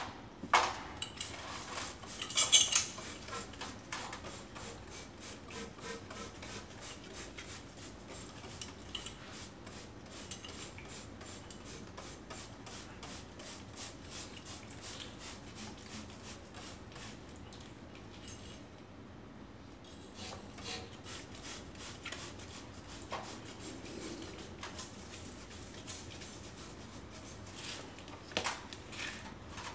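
Motorcycle front fork being washed out by hand: many quick squirts of a trigger spray bottle, with metal clinks and rubbing as the fork tubes are handled, loudest in a clatter about two seconds in.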